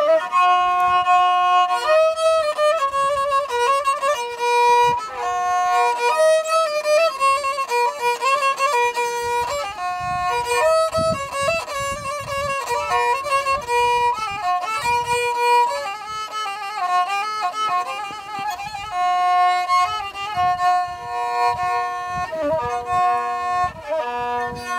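Solo violin playing a Turkish folk-song melody as an instrumental break between sung verses, the notes stepping quickly up and down.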